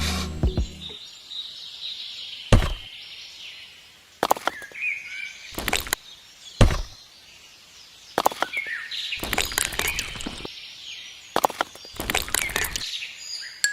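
Birds chirping in the background, with a series of sharp knocks: single knocks every second or two, then quicker runs of taps near the end.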